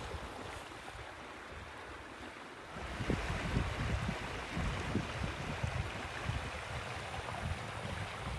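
Outdoor wind buffeting the microphone: a steady hiss with low rumbling gusts, louder from about three seconds in.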